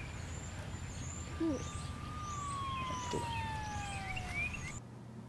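A siren sounding one long tone, held steady and then slowly falling in pitch. Small birds chirp repeatedly over it. Near the end it cuts off abruptly to a quiet room hum.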